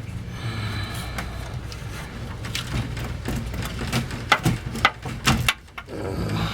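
Scattered clicks and knocks of hand work as a fuel pump assembly is worked loose from a Ford Ranger's dropped fuel tank, with a few sharp, louder knocks about four to five and a half seconds in. A steady low hum lies underneath.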